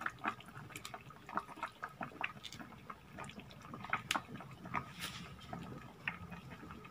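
Spiced meat sauce bubbling in a pan on the stove, with scattered small pops and sputters over a faint hiss as oil is poured into the boiling liquid.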